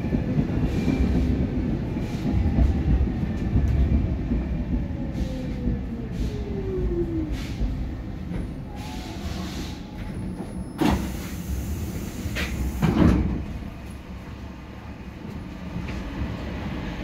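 Stockholm metro C14 car slowing into a station: a low running rumble with a falling whine as it brakes. As it comes to a stop there is a loud hiss of air and a couple of knocks.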